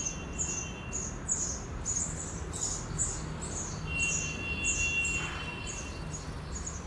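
House sparrows chirping at a nest: a short, high chirp repeated about twice a second, steadily, over a low background hum.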